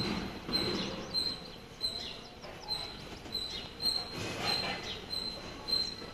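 Birds chirping: one high note repeated over and over, with a few short falling calls in between.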